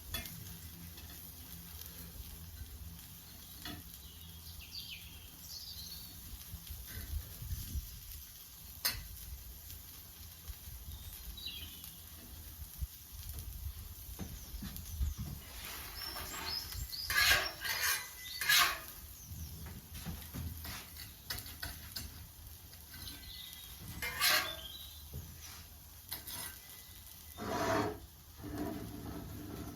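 Metal utensils scraping and clinking now and then as cooked breakfast food is moved around and arranged on a plate, louder for a moment past the middle. Birds chirp faintly.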